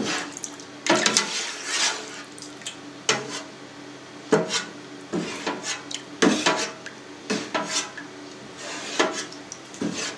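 Plastic skimmer stirring and breaking up cut cheese curd in whey in a stainless-steel pan, scraping and knocking against the metal sides in irregular strokes about once a second.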